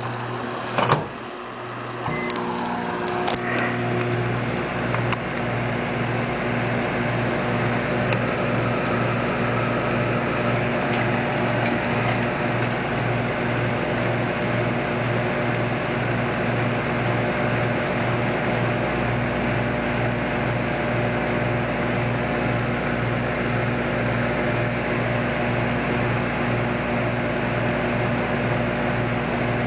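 Microwave oven starting after a few clicks about two seconds in, then running with a steady hum. The hum carries a low, regularly pulsing drone.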